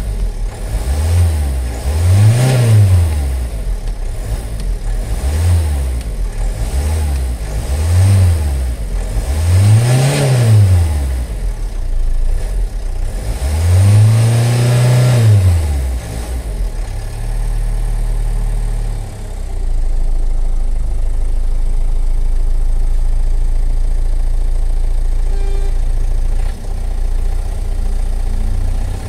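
Car engine revved by foot on the accelerator: a string of quick blips rising and falling in pitch, three of them higher and longer, then held at a steady speed for the last twelve seconds or so.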